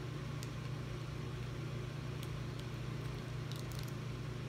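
Faint ticks and brief crinkling of a plastic sauce sachet being squeezed out and handled, over a steady low hum that is the loudest sound.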